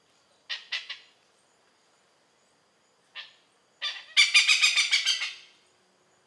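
Oriental pied hornbill calling: a quick cluster of three or four harsh notes about half a second in, a single note about three seconds in, then the loudest part, a rapid run of many notes lasting over a second.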